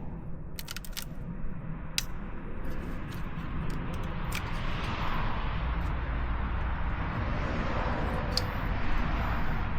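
A few sharp metal clicks of hand tools at the 10 mm coil-pack bolt in the first two seconds, then a steady rushing noise with a low rumble that grows louder in the second half.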